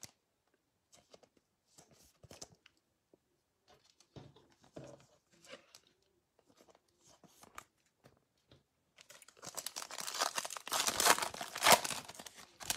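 Faint clicks and rustles of trading cards being handled, then, from about nine seconds in, a loud crackling rip as the foil wrapper of a Donruss baseball card pack is torn open and crinkled.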